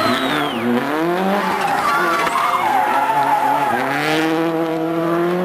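Subaru Impreza WRC rally car's turbocharged flat-four engine at full throttle. Its pitch dips and climbs several times through gear changes, drops sharply a little over a second before the end, then climbs slowly.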